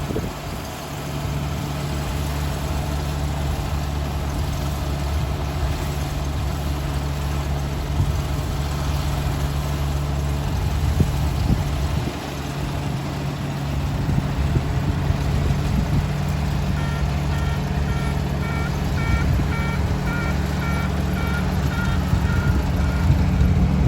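Rice combine harvester's engine running steadily. From about two-thirds of the way through, a repeating electronic warning beep sounds over it for several seconds.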